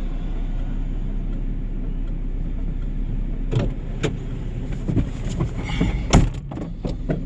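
Motor vehicle engine idling steadily, with a series of sharp knocks and clunks in the second half.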